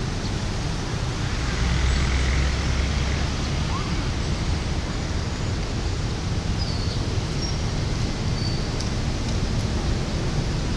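Diesel locomotive hauling a passenger train, engine working with a deep, steady rumble under a broad rushing noise as it approaches.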